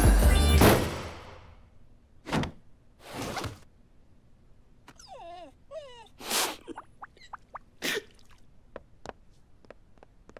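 A music number ends on a final hit that dies away within the first second, followed by cartoon sound effects: a couple of thuds and a whoosh, a short wavering cry around the middle, then light quick taps that come faster near the end.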